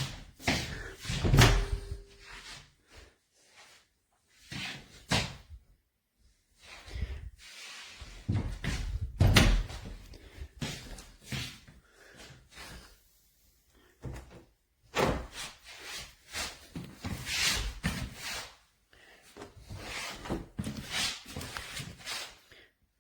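A door and its lever handle being worked: irregular latch clicks and knocks, with heavier door slams about a second in and about nine seconds in.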